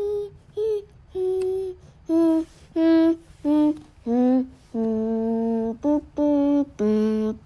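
A child humming a tune without words in short separate notes, with a longer held note about five seconds in and another near the end.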